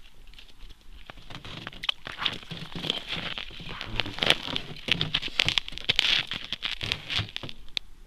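Crunching and rustling as an angler shifts his position on packed snow and ice in a winter suit: a dense run of crackles from about a second in until near the end.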